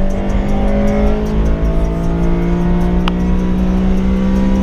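Honda Civic Si's 2.0-litre four-cylinder engine pulling under acceleration, heard from inside the cabin, its note rising slowly as the revs climb. A brief click about three seconds in.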